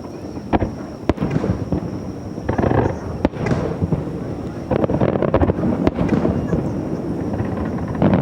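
Aerial fireworks shells bursting: sharp separate bangs about half a second, one, three and six seconds in, with patches of crackle and rumble between them.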